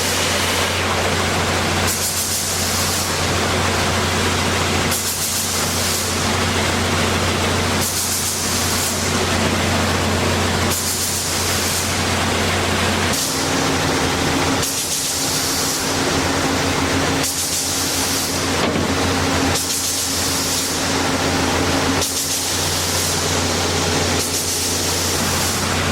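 Cemco 2000 43-inch wide belt sander running: a steady low motor hum under a loud hiss that swells at irregular intervals, with a higher steady tone joining about halfway through.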